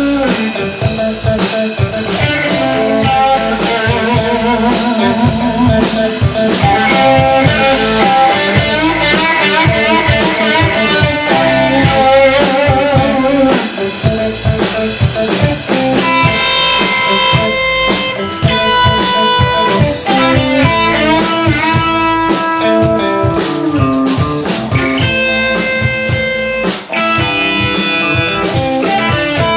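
Live blues band playing an instrumental passage: an electric guitar lead with wavering, bent notes and then long held notes over drum kit and bass guitar.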